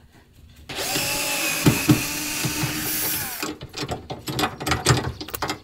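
Cordless driver spinning out a stuck self-tapping screw from the air-conditioner's metal bracket, running steadily for about three seconds from about a second in. It is followed by a quick run of clicks and rattles as the loosened screw and bracket are handled.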